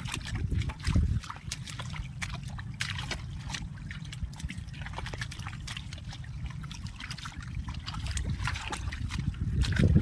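Hands digging and scooping through wet mud and shallow water, with many irregular squelches, small splashes and dribbling water.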